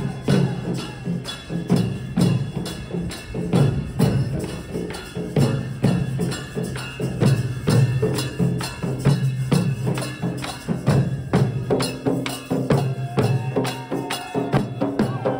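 Dollu Kunitha drumming: large dollu barrel drums beaten with sticks in a fast, steady, loud rhythm, with metallic cymbal clashes on the beat.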